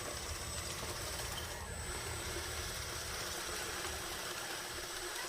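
A remote-control model bulldozer's small motor and gear drive running steadily, with a constant high whine.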